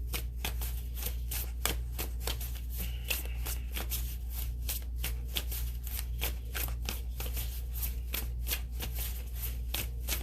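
Tarot deck being shuffled by hand, a quick run of card snaps and riffles, several a second, over a steady low hum.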